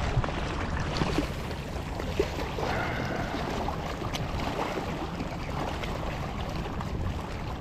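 Small sea waves lapping and splashing against shoreline rocks, a steady wash of water with a few light clicks.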